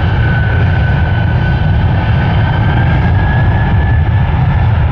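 Boeing 747-400 freighter's four jet engines spooling up for the takeoff roll: a loud, steady rumble with a fan whine that rises slightly in pitch about three seconds in.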